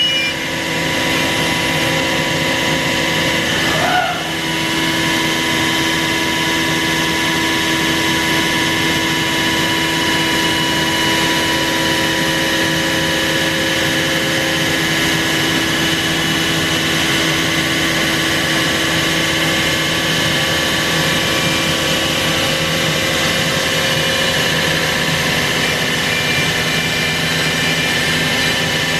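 CNC router spindle running steadily while milling a guitar neck, a continuous machine whine made of several steady tones over a noisy rush. About four seconds in there is a brief sliding tone and a short dip in level.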